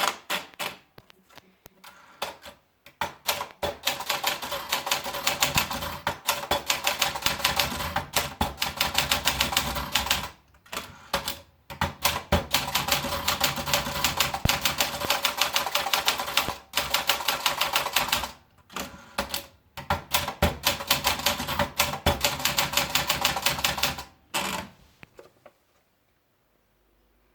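Olympia Splendid 66 manual portable typewriter being typed on quickly, keys and typebars clacking in fast runs with a few short pauses, stopping about 25 seconds in.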